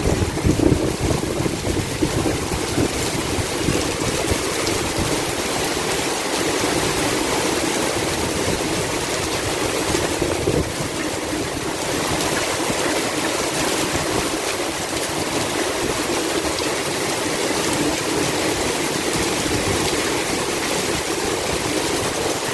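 Heavy tropical rain pouring down in a steady, loud downpour.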